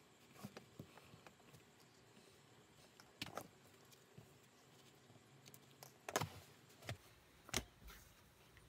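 Quiet handling sounds of leatherwork: scattered soft clicks, then a few sharper taps and rustles of leather pieces being handled on a cutting mat, the loudest about six and seven and a half seconds in.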